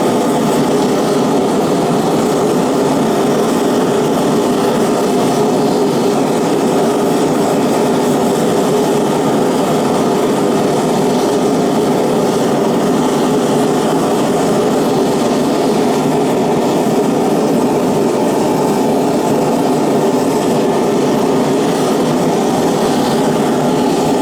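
Single-burner gas forge running steadily, an even, unbroken rush from the burner flame, during the first firing that cures its fresh Satanite lining.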